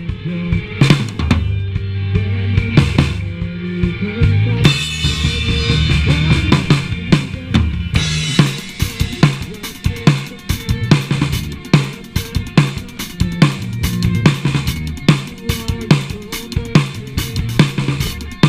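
Live rock band playing an instrumental jam: drum kit with kick and snare under a low bass-guitar riff. Cymbals come in about four and a half seconds in, and the drumming gets busier from about eight seconds on. Heard through a GoPro's built-in microphone.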